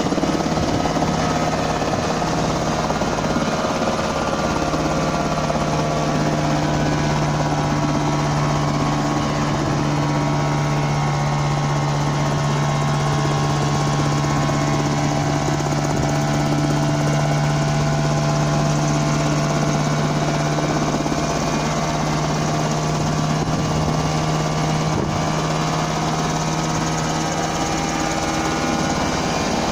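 Homemade coaxial-rotor helicopter running steadily, its engine and two contra-rotating rotors making a loud, even drone with a strong low hum.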